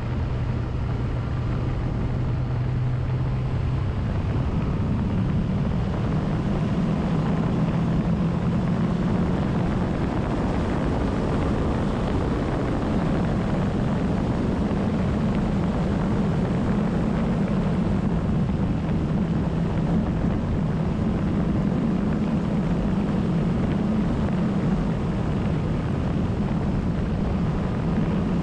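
A vehicle engine running steadily under a constant rush of noise. Its hum steps up in pitch about four seconds in and then holds there.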